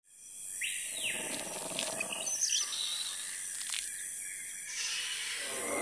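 Jungle ambience sound effects fading in: scattered bird calls and chirps and a short animal cry over a steady high hiss.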